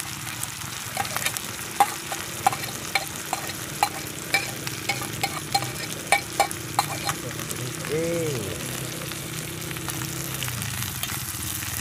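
Hot oil sizzling and crackling in a pan as a plateful of tiny whitebait-like fish is scraped in, with repeated sharp clinks of a metal spoon on an enamel plate. The clinks come thick for the first seven seconds, then the sizzle carries on alone.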